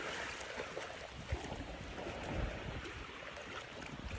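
Small sea waves lapping and washing in shallow water, a steady hiss, with uneven low rumbles of wind on the microphone.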